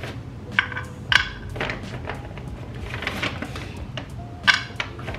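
Chocolate-covered mini pretzels dropped one at a time onto a kitchen scale as a portion is weighed out, giving a few separate sharp clicks with short gaps between them.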